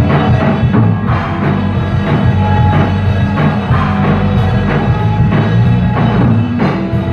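Live rock band playing loud: a Pearl drum kit with cymbals and bass drum, together with electric guitars.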